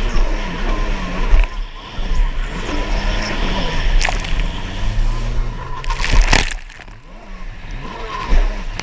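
Stand-up jet ski's engine running at race pace, its pitch rising and falling with the throttle, under heavy wind on the onboard microphone and the hull slapping through chop. A loud splash comes about six seconds in, and the sound is quieter for a second or so after it.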